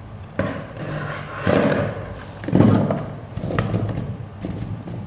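Chunks of raw purple yam tipped from a plastic colander into an empty stainless steel pot, landing in a series of dull thuds and knocks, the loudest about two and a half seconds in.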